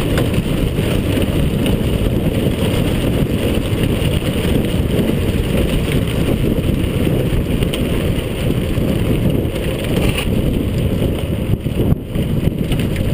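Mountain bike rolling fast down a rough dirt and stone track, the rattle of the ride and wind buffeting the bike-mounted camera's microphone making a loud, steady noise with a brief dip near the end.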